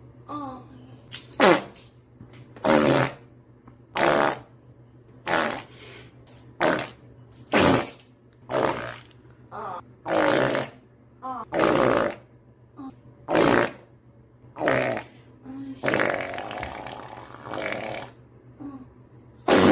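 A long run of farts: about a dozen short blasts a second or so apart, some with a bending pitch, then a longer drawn-out one about three quarters of the way through.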